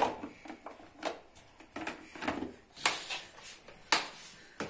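Sharp clicks and knocks of a spoon and a plastic spice box with a snap-on lid being handled, about half a dozen, spaced roughly a second apart.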